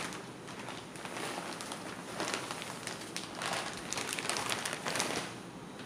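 Plastic packaging crinkling and rustling as a saree is pulled out of its packet and handled, in several crackly bursts.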